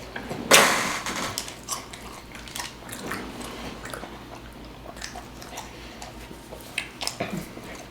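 Crunchy food being bitten and chewed close to the microphone, with a loud crunch about half a second in and scattered crackles after.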